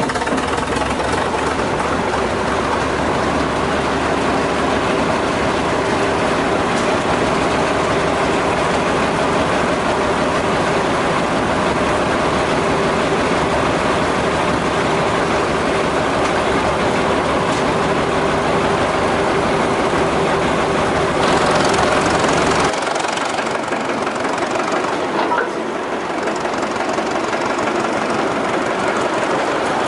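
The 1926 Twin City gasoline engine of a Northwest 105 dragline running with a rod knock, a connecting-rod bearing fault that threatens to break through the block. About 23 seconds in, the deep rumble drops away abruptly while the mechanical clatter goes on.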